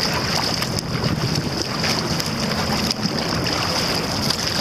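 Water rushing and splashing along the hull of a tandem racing kayak under way, with irregular splashes from the double-bladed paddle strokes and wind buffeting the microphone.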